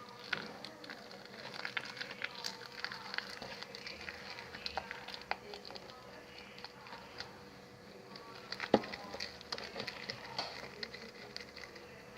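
Homemade slime being stirred and worked, making irregular small sticky clicks and crackles, with one sharper snap about nine seconds in.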